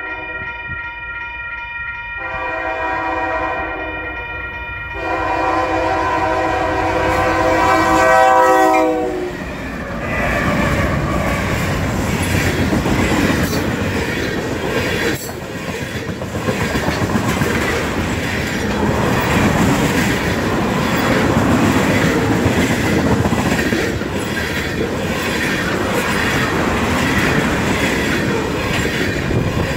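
Railroad crossing bell ringing with steady tones, then a freight locomotive's chime horn sounds a short blast and a longer one as it nears the crossing. From about ten seconds in, the locomotives and a long ethanol tank-car train roll past with a continuous rumble and clickety-clack of wheels over the rail joints.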